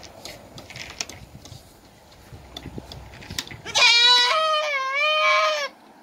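A goat bleating: one long, wavering bleat of about two seconds, starting a little past halfway, over faint rustling and clicks.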